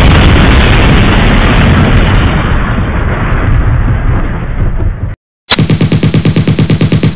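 Sound effects for a title animation. A sharp hit opens a loud, dense rushing rumble that fades slightly and cuts off abruptly about five seconds in. Half a second later comes a rapid run of sharp pulses, about eight a second, which stops near the end.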